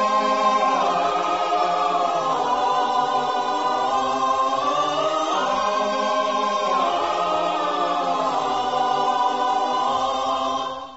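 Choir singing long, held chords over the music with no beat, the voices slowly shifting pitch together, then fading out to silence near the end.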